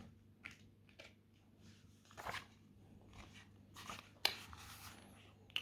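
Faint rustles and a few small clicks from a picture book being handled, with a sharper click about four seconds in.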